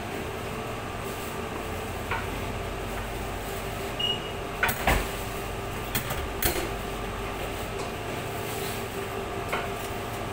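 Knife work on a pork carcass during bone removal: a few sharp knocks of blade on bone or steel table, the loudest about five and six and a half seconds in, over a steady background hum.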